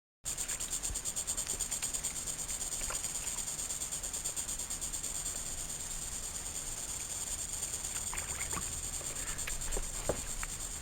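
Insects trilling steadily in a high, rapidly pulsing buzz that starts abruptly just after the beginning, with a few faint clicks and knocks near the end.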